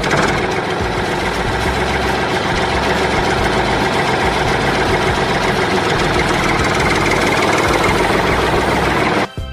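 Tractor engine running steadily at a low idle, used as a sound effect. It cuts off abruptly near the end.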